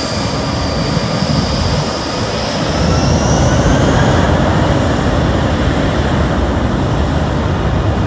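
Jet engines of an Aegean Airlines Airbus A320-family airliner spooling up as it begins its takeoff roll. A high whine rises over the first few seconds, and the roar grows louder about three seconds in and stays loud.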